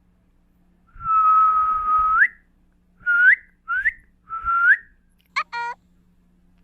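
Whistling: one long steady note that rises at its end, then three short upward-swooping whistles, answered near the end by a brief squeaky chirp from a domestic shorthair cat.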